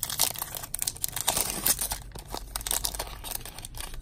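Foil trading-card pack being torn open and crinkled by hand: a quick run of sharp crackles and rips, densest in the first two seconds and thinning after.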